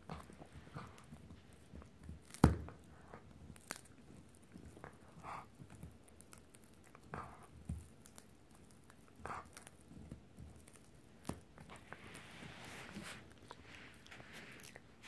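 Italian Greyhound gnawing a Dingo rawhide chew bone: irregular wet chewing, crunches and biting clicks, with one sharp loud crack about two and a half seconds in. A soft hiss comes near the end.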